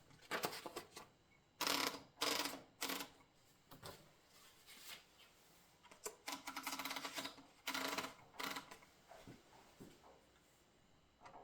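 A 1935 Seidel & Naumann Erika Model M portable typewriter being worked: irregular groups of clattering key and typebar strokes, with a few longer runs of mechanical rattle and quiet pauses between them.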